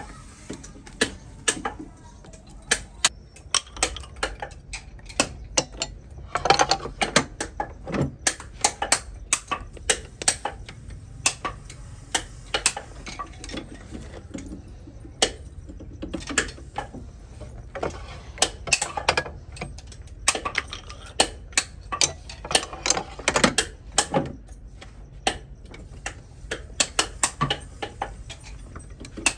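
Workshop clatter: irregular sharp clicks and knocks, several a second, from hard parts being handled and worked, over a low steady hum.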